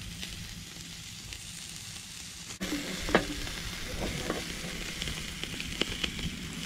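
Ribs sizzling steadily on a grill, with metal tongs clicking against the grate and meat as the ribs are moved. The loudest click comes about three seconds in, followed by several lighter ones.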